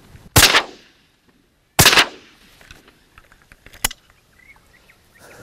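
Two shotgun shots about a second and a half apart, each with a short echoing tail, then a sharper, quieter crack about four seconds in.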